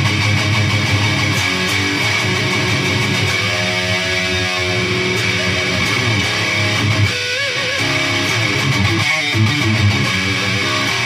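Electric guitar played through a Peavey Triple XXX II tube amp head and speaker cabinet, riffing with a distorted tone. About four seconds in a held note wavers with vibrato, and a short bent note wavers again near seven seconds.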